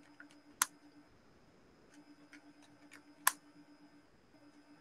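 Two sharp clicks at a computer, about half a second and three seconds in, with a few fainter ticks between them, over a faint steady hum.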